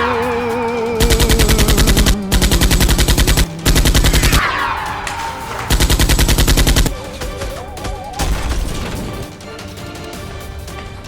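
Four bursts of rapid automatic gunfire, about a dozen shots a second, each burst lasting around a second, from a dubbed machine-gun sound effect over background music. Two falling whooshes, near the start and about four seconds in, are also heard.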